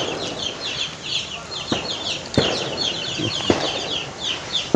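A hooked fish thrashing and splashing at the water's surface as it is reeled in, giving a few sharp slaps, over constant high chirping of birds.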